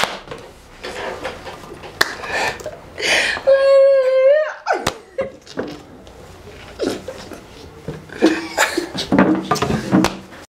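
Indistinct talk and laughter. About three and a half seconds in there is one held, pitched sound lasting about a second, which rises at its end.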